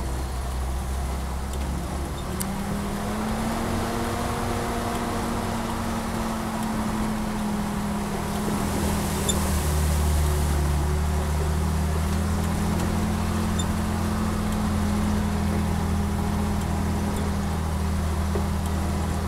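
A 1951 Chrysler M37CDN army truck's 251 flathead straight-six is running under way on a rough dirt track, heard from inside the cab. The engine note changes about two seconds in and again about halfway through, and the engine is a little louder after the second change.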